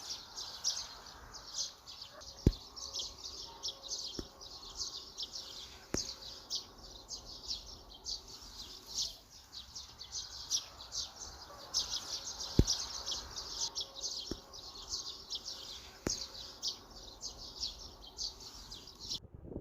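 Songbirds chirping and twittering in quick, dense, high-pitched runs, with a few sharp clicks; the birdsong cuts off suddenly near the end.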